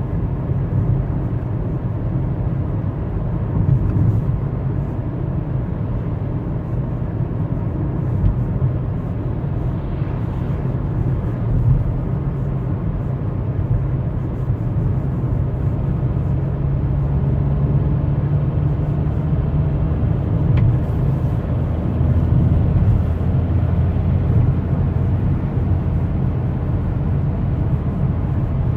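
BXW 1.4 16V 86 hp petrol engine running under load as the car accelerates, its note rising slowly a few times, with the rattling, clattering knock that comes only under load. The owner suspects knocking pistons, as known from the BBY engine.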